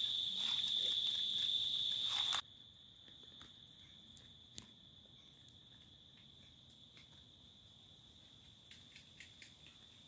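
Insects trilling: a steady high-pitched drone with a hiss above it, which drops suddenly to a faint level about two and a half seconds in and carries on faintly. A few faint clicks come through near the end.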